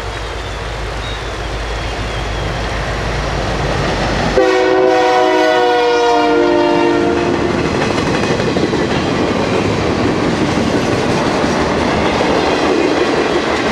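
Diesel locomotive (EMD SD40-2) approaching with a low engine hum, then its air horn blasts loudly for about two and a half seconds, dropping in pitch near the end as it passes. The train then rolls by with steady wheel-on-rail clatter and rumble.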